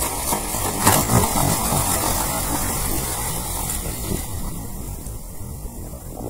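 A hooked yellowfin tuna thrashing at the surface beside the boat, splashing and throwing water, loudest about a second in.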